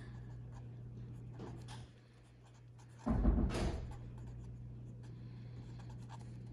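Pen marking a page in short scratchy strokes over a steady low hum, with one louder thump and rustle about three seconds in.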